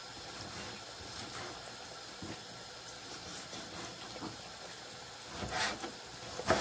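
Knife slicing a tomato on a plastic cutting board, with a few soft taps, the loudest near the end. Underneath runs a steady hiss of plantain slices frying in hot oil.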